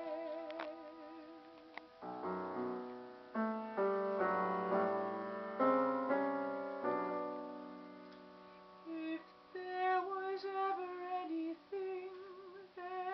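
A woman's operatic voice with wide vibrato ends a held note, then a piano plays a run of struck chords that ring and fade. About nine seconds in, she sings again, holding wavering notes over the sustained piano.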